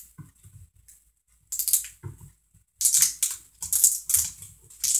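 Hands working a plastic shake bottle and its screw cap: several short bursts of scraping and clicking plastic, starting about one and a half seconds in and coming closer together near the end.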